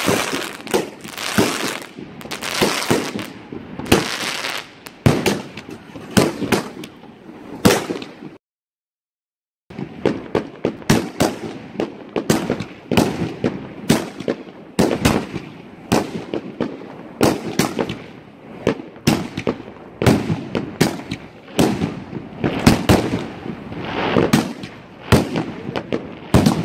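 Consumer firework batteries firing, a rapid, continuous run of sharp bangs from launches and bursting shells. The sound drops out completely for about a second a third of the way in, then the bangs resume.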